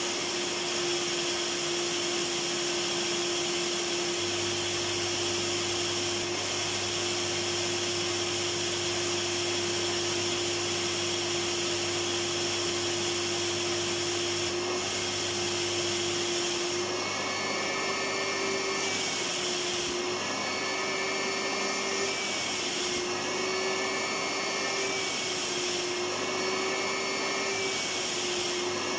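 Electric vacuum cleaner motor running continuously with a steady whine over a rushing hiss. From about halfway through, its pitch wavers slightly in a regular cycle of roughly three seconds.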